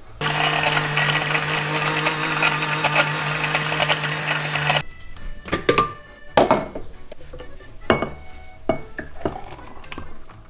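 Countertop blender with a glass jug runs steadily for about four and a half seconds, mixing milk and vanilla powder into an iced milkshake, then is switched off. A few short knocks and clinks follow as the jug is lifted and the shake poured into a glass.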